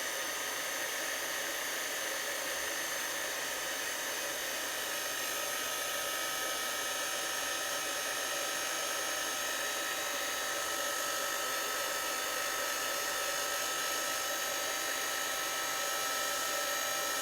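Craft heat tool (embossing heat gun) blowing steadily to dry wet paint: an even fan hiss with a constant high whine.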